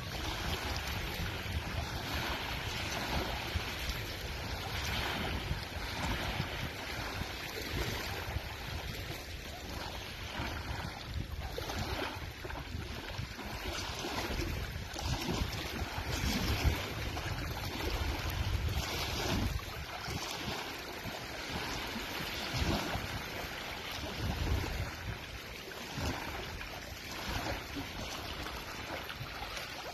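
Wind gusting across a cell phone's microphone, making an uneven low rumble, with small lake waves lapping at the shoreline.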